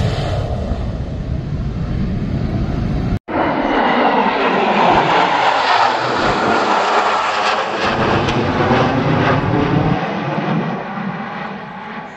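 Fighter jet engines running loud as a Sukhoi Su-30MKI passes low over the highway airstrip with its gear down. After a sudden cut, a steady jet noise comes from a formation of four fighter jets flying overhead, easing slightly near the end.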